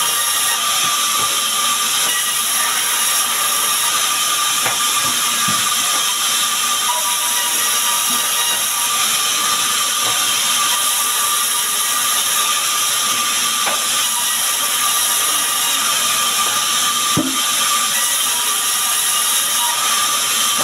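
Sawmill band saw running steadily and ripping small sengon (albizia) logs into boards: a continuous high whine and hiss of the blade in the wood. A few sharp knocks of timber come through it.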